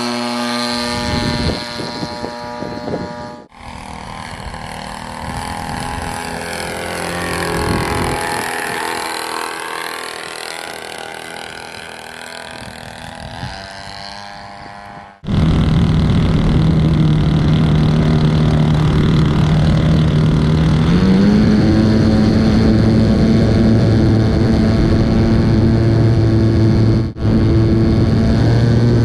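Model airplane engine of a Senior Telemaster RC plane running in flight. It grows louder and then fades as the plane flies past. About halfway through it is suddenly much louder and closer, a steady engine note that steps up in pitch about two-thirds of the way in as the throttle is opened.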